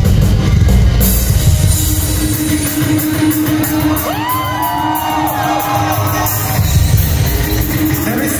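Rock band playing live at full volume in a large hall, heard from within the crowd: drums and bass heavy at first, then a held low note. A voice yells over the music about halfway through.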